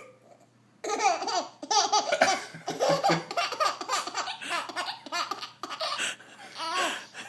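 Baby laughing hard in a long run of high-pitched belly laughs and giggles that starts about a second in and dies away near the end.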